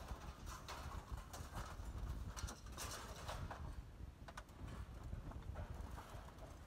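Small pieces of scrap metal clinking and clattering as they are handled and tipped out of a plastic tote, an irregular scatter of light knocks over a low steady rumble.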